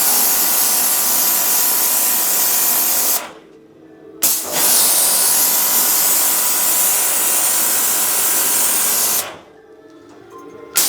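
Portable electric pressure washer blasting a high-pressure water jet, a loud steady hiss over the pump's hum. It cuts out twice when the gun's trigger is released, stopping the machine, and starts again sharply when the trigger is squeezed.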